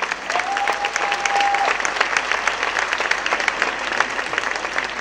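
Audience applauding, a dense patter of many hands clapping. A single high steady tone sounds over it for over a second near the start.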